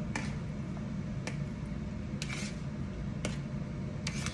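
Metal utensil clicking and scraping against a plate as cooked chicken pieces are pushed off it into a skillet. There are several sharp clicks about a second apart and a short scrape about halfway, over a steady low hum.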